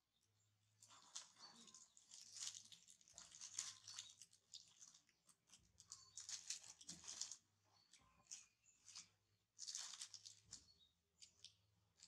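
Faint crinkling and rustling of plastic sweet wrappers as a baby monkey and a person's hand grab and handle wrapped candies, coming in irregular spells with short pauses between.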